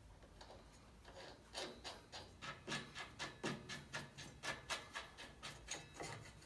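Steel arbor nut being spun by hand down the table saw's arbor threads: a quick even run of short scraping clicks, about four or five a second, starting about a second and a half in and stopping near the end.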